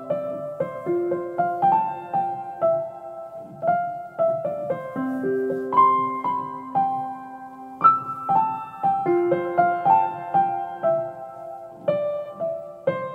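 Background piano music: a melody of separate notes over held lower notes.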